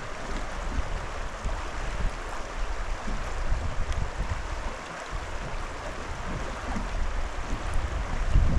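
Rushing water of a fast river, a steady hiss, with wind buffeting the microphone in uneven low rumbles.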